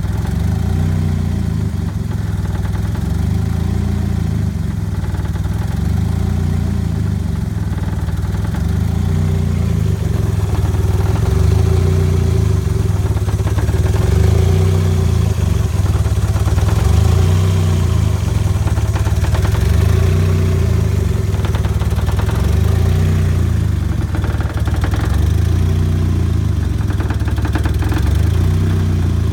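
Turbocharged 1994 Mazda Miata's 1.8-litre four-cylinder idling roughly, its note rising and falling about every three seconds. The idle is hunting near stalling; the owner suspects a badly leaking exhaust manifold beside the turbo is choking the engine.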